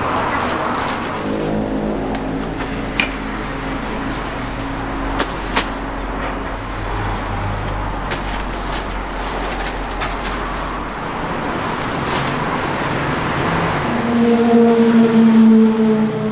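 Road traffic with a motor vehicle running nearby, a steady low hum under the street noise, broken by a few sharp clicks. Near the end a louder, steady pitched vehicle sound lasts about two seconds.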